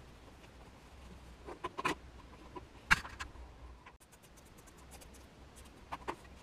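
Fibreglass cloth and woven roving being handled on a workbench: scattered rustling and scratching with a few sharp clicks, the loudest about three seconds in.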